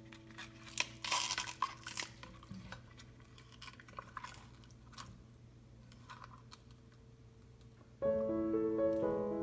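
Kitchen handling sounds: scattered clicks and light clatter of utensils and dishes, with a short noisy rush about a second in. Piano music starts near the end.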